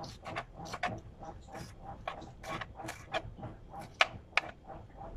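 Kitchen knife slicing habanero chiles thinly on a plastic cutting board: quick knife taps on the board, about four a second, with two sharper taps about four seconds in.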